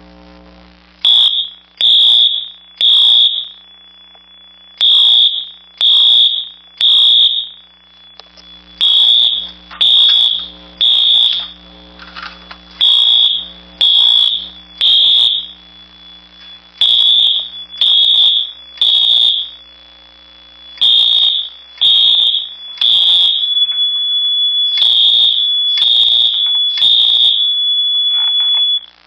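Wheelock MT fire alarm horn sounding the temporal-three evacuation pattern during a system test: groups of three loud, high-pitched blasts about a second apart, a new group every four seconds. For the last five seconds a steady high tone sounds between the blasts, and the alarm cuts off suddenly near the end.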